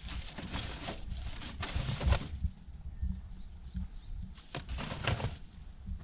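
Plastic bags and rubbish rustling and crinkling in three spells as a mantled guereza (black-and-white colobus monkey) rummages through a bin for leftovers.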